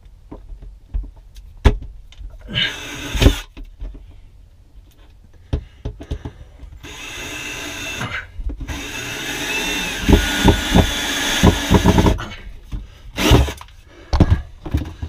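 Cordless drill driving a screw through a wooden board into a wall stud: a short burst early on, then a run of about five seconds with the motor whining, heavy thumps near its end as the screw draws tight, and another brief burst shortly after.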